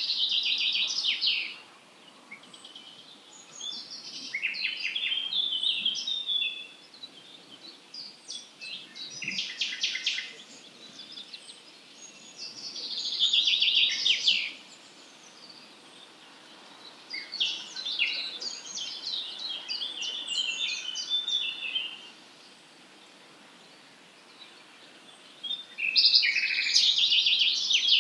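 Songbirds singing: high chirping, trilled phrases about six times, each lasting one to several seconds with short pauses between, over faint steady outdoor background noise.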